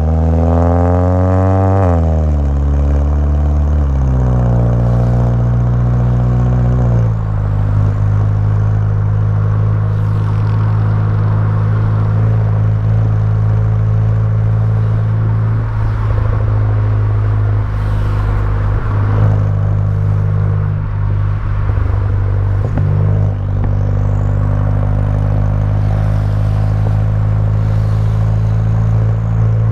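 Volkswagen Jetta GLI Mk6's turbocharged 2.0 TSI four-cylinder sounding through an aftermarket downpipe and cat-back exhaust. The engine note wavers and drops in steps over the first seven seconds or so, then settles into a steady low drone.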